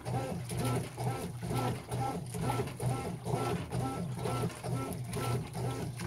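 Top-loading washing machine agitating a load in water: the motor hums under a steady rhythmic whir and slosh, about three strokes a second.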